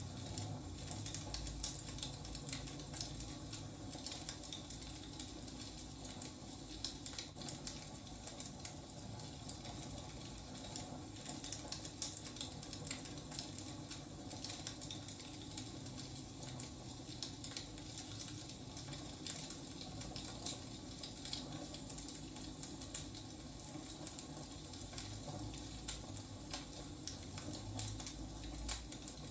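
Wood fire burning, with a steady low rumble and many irregular crackles and pops of the burning logs.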